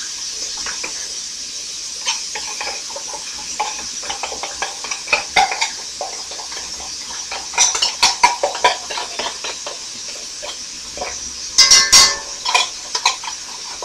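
Metal spoon scraping and clinking in a can of condensed cream of mushroom soup as it is spooned into a cast iron skillet of ground beef, over a steady sizzle from the pan. A quick run of sharp ringing clinks comes near the end.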